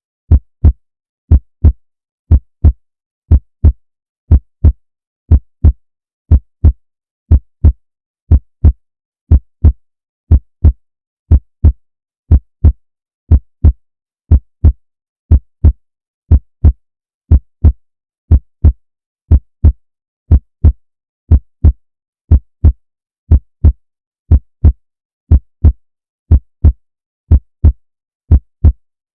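Heartbeat, a steady lub-dub: two short, deep thumps close together, repeating about once a second with silence between beats.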